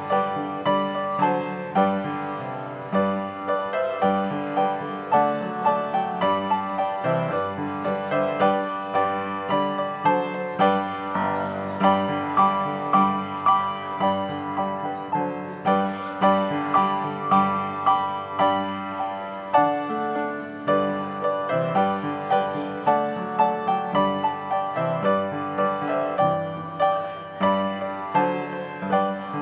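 Piano music: a steady run of struck notes and chords, each ringing out and fading.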